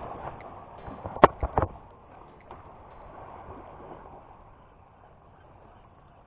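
Small sea waves washing and lapping, dying down after about two seconds, with a quick cluster of sharp knocks about a second in.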